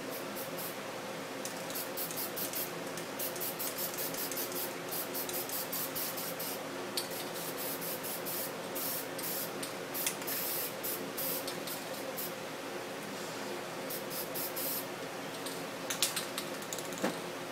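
Aerosol spray paint can hissing in many short bursts, over a steady low hum. A couple of sharp clicks come near the end.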